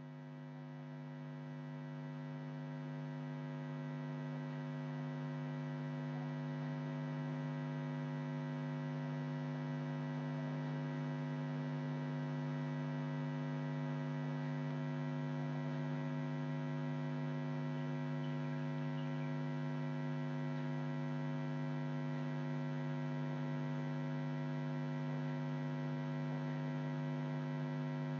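Steady electrical mains hum with a buzzing stack of overtones, strongest low down, swelling slightly over the first few seconds and then holding steady.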